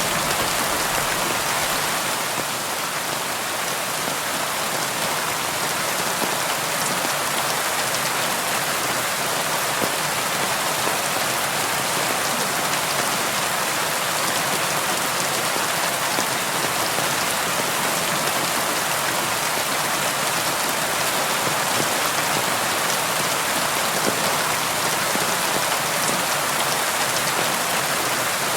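Steady rain falling on a window: an even, unbroken hiss with faint scattered drop ticks.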